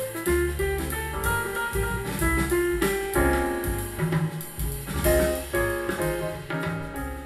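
Jazz music playing through a pair of Sharp CP-C411H bookshelf speakers, recorded by a microphone in the room, with melodic notes over drums.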